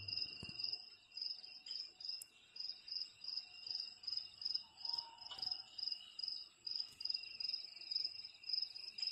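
Recorded cricket chirping played through a sunrise alarm clock's speaker as one of its soothing sleep sounds: a steady, rhythmic high chirp pulsing a few times a second.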